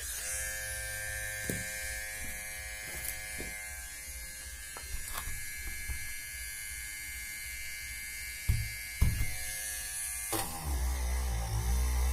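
Small DC motor of a homemade mini drill running with a steady whine, with a few light knocks and two sharper knocks late on. About ten seconds in, the pitch drops and the sound gets louder and fuller.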